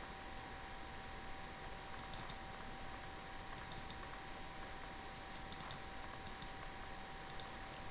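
Faint, scattered clicks from operating a computer, a few keystrokes or button clicks spread over several seconds, over a steady electrical hum and hiss.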